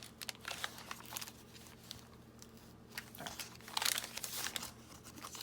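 Paper rustling and crinkling as the pages and paper inserts of a handmade junk journal are turned and handled, in short irregular bursts that grow busier in the second half.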